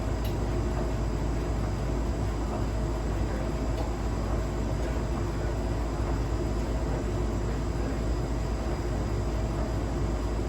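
A Hotpoint household appliance running steadily with a low rumble and hum, with a couple of faint clicks. The noises are ones the owner suspects may mean a fault.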